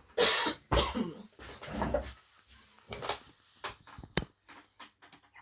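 Three short, loud vocal bursts in the first two seconds, then light clicks and scrapes of a spoon stirring a thick honey mixture in a jar.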